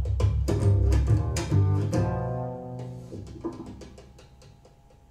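Jazz trio music played through SVS Prime Wireless Pro active speakers: double bass notes and sharp strikes for the first second and a half, then a final held chord that rings out and fades away.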